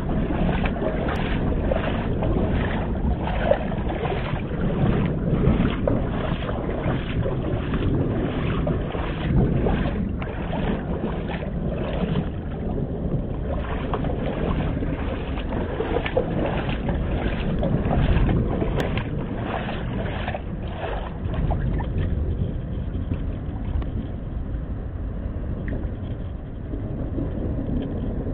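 Rain falling on flood water, with a steady low rumble and a regular knocking about twice a second that stops about twenty seconds in.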